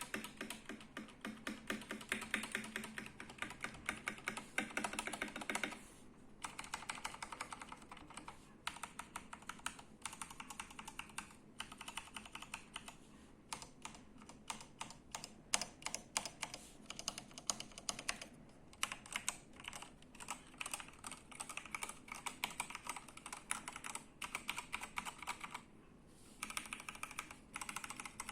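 Typing on a Red Square Keyrox TKL Classic mechanical keyboard with Gateron Yellow linear switches: fast runs of key clacks broken by short pauses, with a slight room echo.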